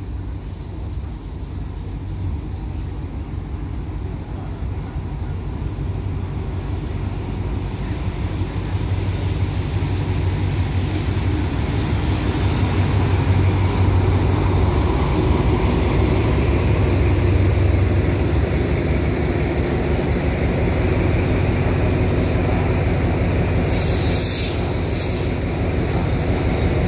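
Diesel-hauled passenger train pulling into the station. The locomotive's low engine drone grows louder as it draws alongside, then the coaches roll past. Near the end there are two short bursts of high hiss from the brakes.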